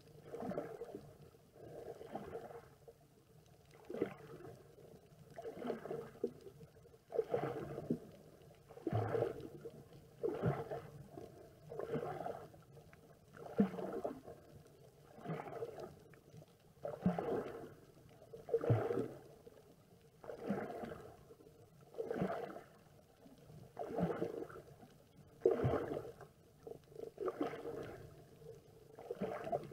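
Snorkeler breathing through a snorkel, heard underwater through the camera housing: muffled, rasping breaths repeating about every one and a half to two seconds.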